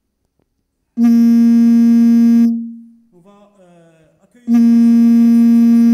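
Background music: a buzzy synthesizer note with many overtones, held about a second and a half and then fading away, played twice, about a second in and again near the end.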